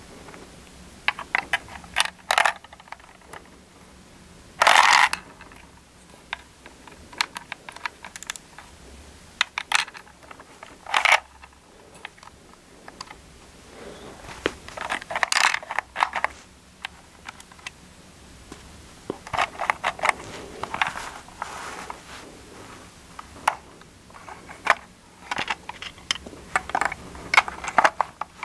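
Plastic clicks and short rattles of a hand-operated LEGO candy machine as its brick mechanism is worked and M&M's drop out of the chute. The clicks come irregularly throughout, with a few longer rattles.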